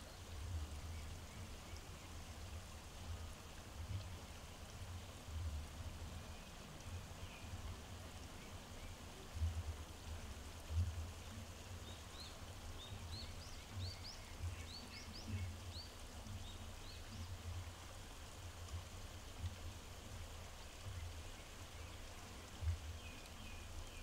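Steady outdoor background hiss like running water, with irregular low rumbling gusts. About halfway through, a bird chirps a quick run of short rising notes.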